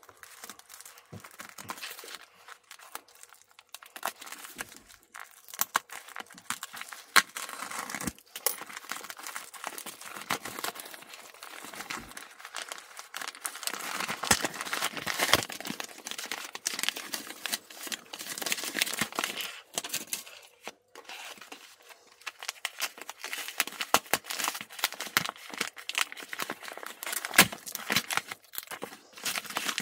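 Padded plastic mailer and its foil-lined inner wrapping being slit with a utility knife, torn open and handled: irregular crinkling and tearing of plastic with many sharp crackles.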